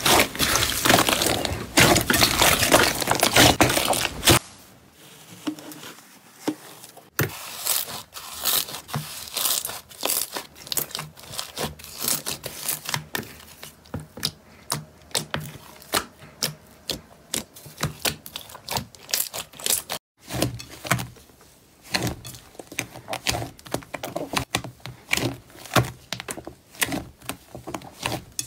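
Hands squeezing and kneading slime: dense crackling for about the first four seconds, then quieter, irregular pops and sticky squelches.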